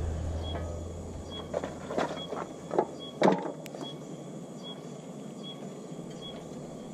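A cable-reel extension cord and tools being shifted and handled on the ground: about five clattering knocks in quick succession, bunched around the middle, the last the loudest.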